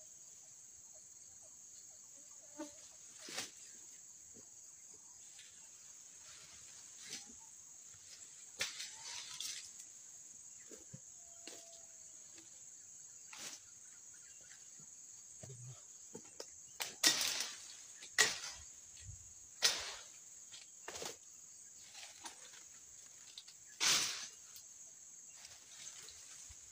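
Steady high insect buzz of a tropical plantation, with scattered sharp cracks and rustles that come louder and closer together in the second half, from a worker moving through dry undergrowth and working with a tool at the base of a young oil palm.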